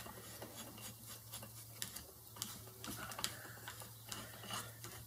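Wooden tension screw of a spinning wheel being turned by hand: faint, irregular wooden clicks and rubbing, over a steady low hum.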